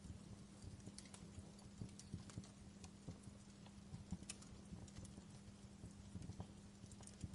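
Campfire crackling: irregular small pops and snaps of burning wood, a few each second, over a soft steady background.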